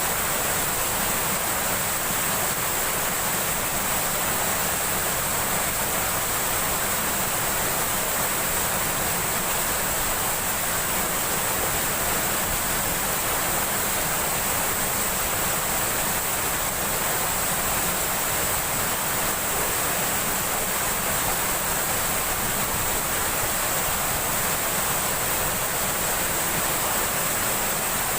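Steady, unbroken rush of fast-flowing river water over rocks.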